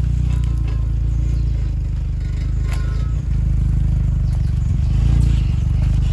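Jeep Wrangler engine running steadily at low revs as the Jeep crawls slowly over rocks.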